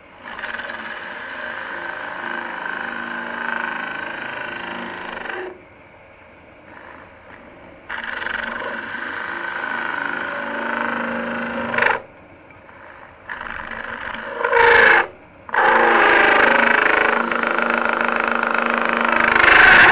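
Sorby ring tool cutting into spinning end-grain wood on a lathe while hollowing a bowl. Four cutting passes: two of several seconds each, a brief one, then a longer one near the end, with only the lathe's quiet running heard between them.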